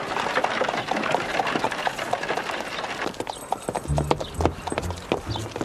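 Horse's hooves clip-clopping on a street as a horse-drawn carriage passes close by, a quick run of sharp strikes. Low music notes come in about four seconds in.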